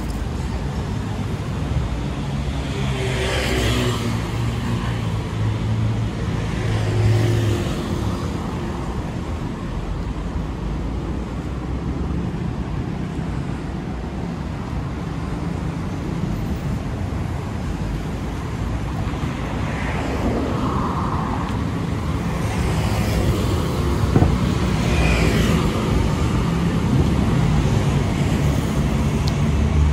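City street traffic: a steady rumble of engines and tyres, with several vehicles passing close by, one after another.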